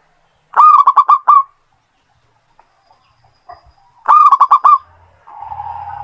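Zebra dove (perkutut) singing: two short phrases of rapid, staccato cooing notes, about three and a half seconds apart. A fainter steady hum comes in near the end.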